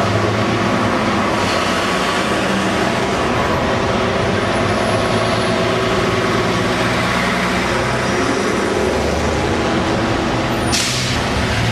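Street traffic with buses passing close: the diesel engine of a Routemaster double-decker bus hums steadily as it drives by, followed by a Mercedes-Benz Citaro bus. Near the end comes a short, sharp hiss of bus air brakes.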